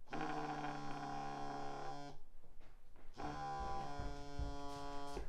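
A flip phone on a wooden table going off: two buzzing rings, each about two seconds long, about a second apart. A few low thumps come during the second ring.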